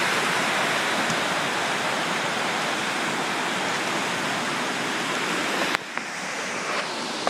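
Large waterfall's steady rush of falling water. About six seconds in it cuts off abruptly to a much quieter background.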